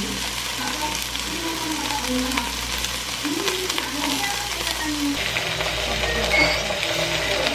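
Gochujang-marinated chicken pieces sizzling steadily in a nonstick frying pan. About five seconds in the sizzle grows a little louder and brighter as the pieces are turned with tongs.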